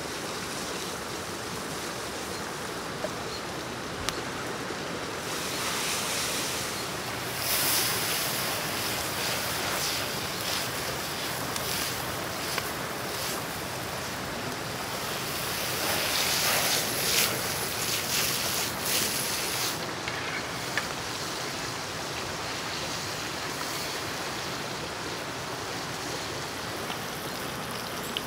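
Steady rushing of a fast-flowing river, with frying in a hot pan over a wood fire: hissing and crackling that gets louder a little before a third of the way in and again just past halfway.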